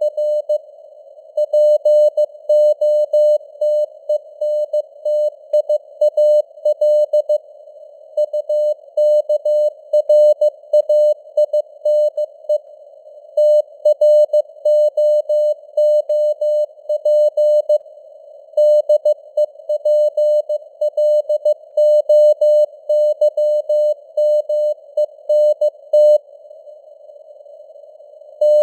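Morse code (CW) sent at 15 words per minute: a single tone near 600 Hz keyed on and off in dots and dashes, over a steady band of simulated radio receiver hiss. Short gaps fall between words, and the hiss runs on alone through a pause of about two seconds near the end.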